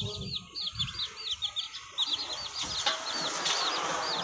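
Young Aseel chicks peeping: a steady stream of short, high calls, several a second. From about two and a half seconds in, a rustling noise joins them.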